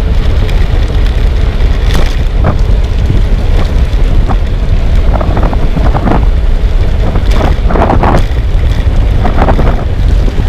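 Heavy wind buffeting on the microphone while cycling, a loud steady low rumble, with irregular knocks and rattles over it, a cluster of them near the end.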